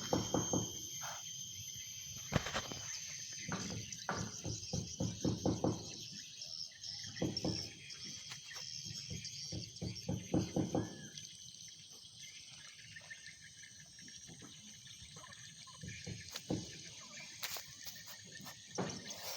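A cat growling and hissing in repeated bursts while facing a cobra, with a steady high-pitched whine underneath.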